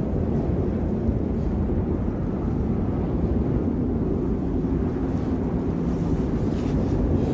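Steady low rumbling roar of a snowstorm's wind buffeting the microphone.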